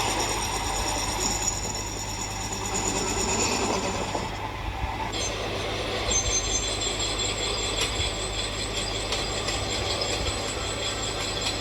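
Metal lathe taking a roughing cut: a steady low hum from the running machine under a high-pitched whine from the cutting tool on the metal, which shifts in pitch about five seconds in, with small clicks and ticks through the second half.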